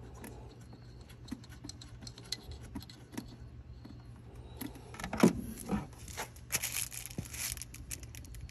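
Hands handling cables and plastic connectors: scattered light clicks and rattles, a louder knock about five seconds in, then a stretch of rustling.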